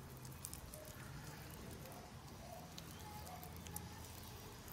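Faint handling sounds of fingers pressing herb butter into the slits of a raw snapper: scattered small soft clicks over a low steady hum.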